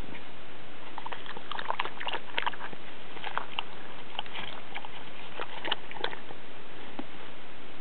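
Border collie puppy pawing in her water dish: an irregular run of small splashes and taps for several seconds, over a steady hiss.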